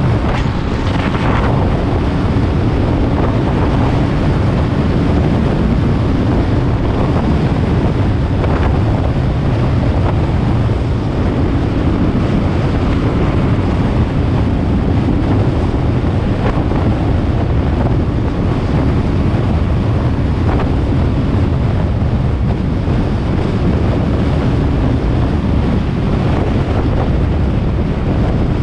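Wind buffeting the microphone of a camera moving along a road: a loud, steady low rumble, with a few brief swishes through it.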